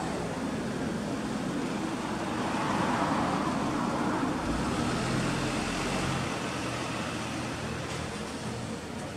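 Road traffic: a motor vehicle passing by, its noise swelling about two to three seconds in, holding for a few seconds, then slowly fading over a steady background of traffic noise.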